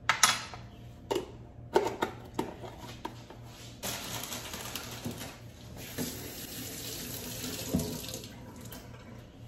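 A few sharp knocks and clinks, then a kitchen faucet running into a stainless steel sink for about five seconds, starting about four seconds in and shut off shortly before the end.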